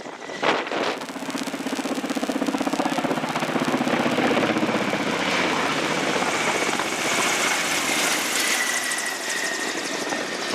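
Russian Ka-27 helicopter's coaxial rotors beating fast and evenly over its turbine engines' high whine as it flies close by. It grows louder over the first few seconds, then holds steady.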